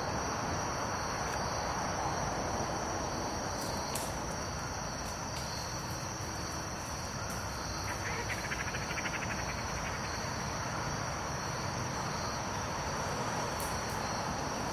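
Steady high-pitched chorus of crickets over a low background hiss, with a short rapid trill joining for about a second and a half around the middle.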